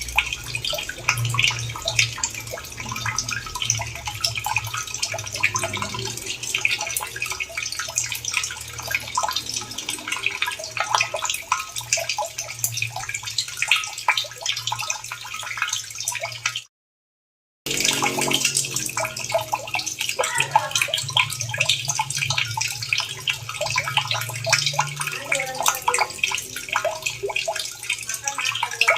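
Running water splashing and dripping continuously, a dense patter of small splashes over a low rumble. It cuts out completely for about a second midway, then resumes.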